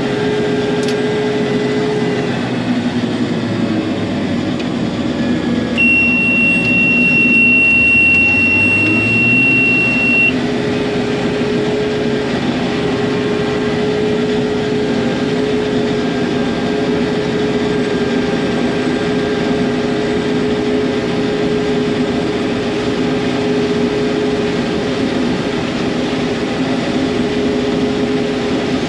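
Combine harvester's engine running steadily. About six seconds in, a steady high warning beep sounds for about four seconds while the engine speed rises, then the engine settles back.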